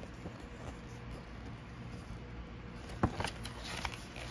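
Pages of a paper rulebook being turned: a sharp paper flick about three seconds in, then short rustles, over a low steady room hum.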